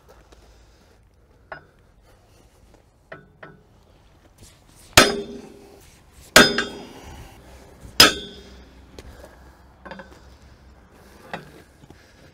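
Sledgehammer striking a steel drift to drive the master pin out of an excavator's steel track: three heavy ringing metal blows about a second and a half apart in the middle, with lighter knocks before and after.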